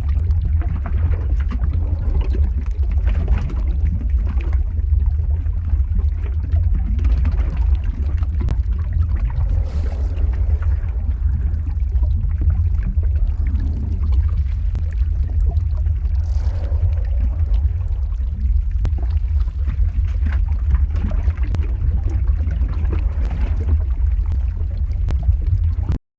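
Lava flow sound effect: a steady deep rumble with scattered crackles and pops, and swells of hissing every few seconds.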